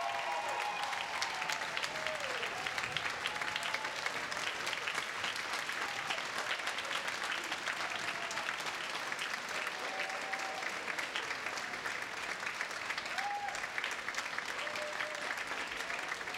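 Large audience applauding steadily, with a few voices calling out from the crowd.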